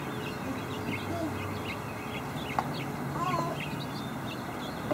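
Birds chirping in many quick short notes over a steady outdoor background hiss, with one sharp click about halfway through.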